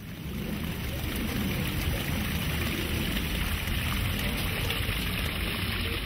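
Water cascading over a small multi-tiered rock waterfall into a garden pond: a steady splashing rush, rising in over the first half second.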